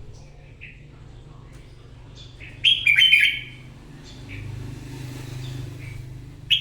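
Red-whiskered bulbul singing: a loud burst of quick, warbling phrases about two and a half seconds in and again near the end, with softer short notes between, over a steady low hum.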